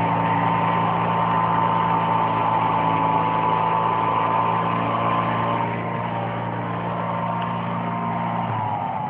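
Engine running steadily with a high whine over a deep drone. Near the end the deep note cuts out and the whine falls in pitch, as if the engine is slowing.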